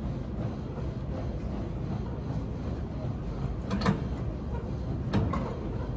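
Steady low room rumble of a gym, with two sharp knocks from a Cybex VR1 weight machine being worked, about a second and a half apart in the second half.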